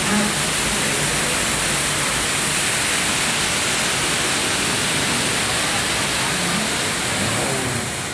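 Steady rush of an artificial waterfall pouring right beside the ride, over the mine train running on its track. The rush eases off a little near the end as the train moves away from the water.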